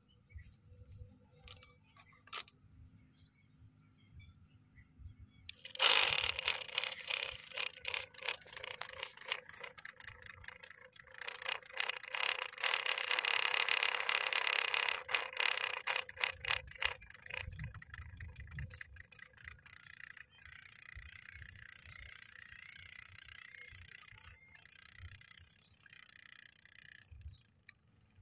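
Small electric motor of a homemade mini borewell drilling machine switched on about six seconds in, running with a high whine and a rough, rattling grind as it drills. Loudest around the middle, steadier later, and it stops shortly before the end.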